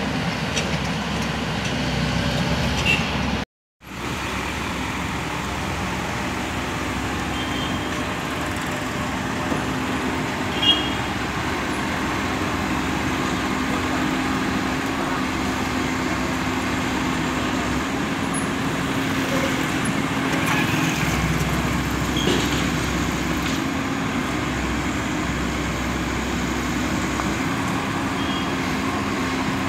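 Komatsu crawler excavator's diesel engine running steadily as it works, a constant low hum. The sound cuts out completely for a moment about three and a half seconds in.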